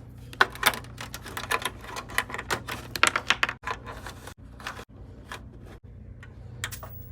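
A flurry of quick, irregular clicks and taps from AV cable plugs and plastic connectors being handled and pushed into sockets, busiest in the first few seconds and thinning out after.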